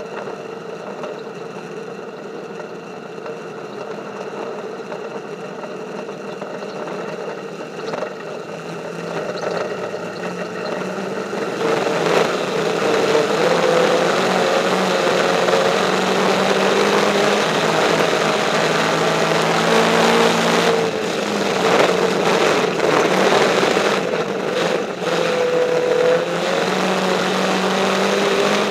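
Dirt-track race car engine heard from inside the cockpit, running at moderate, fairly steady throttle at first, then louder at racing throttle from about 12 seconds in, its revs rising and falling through the corners.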